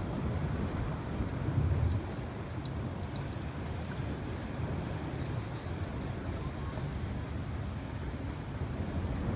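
Wind buffeting the microphone over open water, a steady low rumble that swells briefly about a second and a half in.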